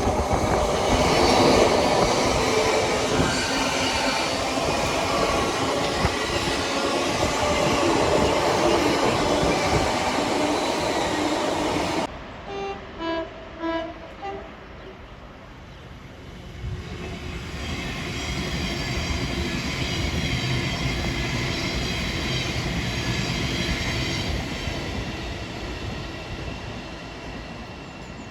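A train passing at speed with wheel and rail noise, which cuts off suddenly about twelve seconds in. After the cut there are a few short train-horn toots. Then another train approaches and passes with a steady whine, fading near the end.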